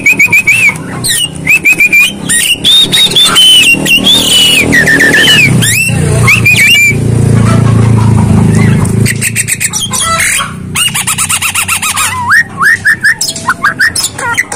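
Javan myna (jalak kebo) singing a varied run of clear whistled notes, rising and falling slurs and bursts of fast chattering, with a rougher, lower-pitched stretch in the middle.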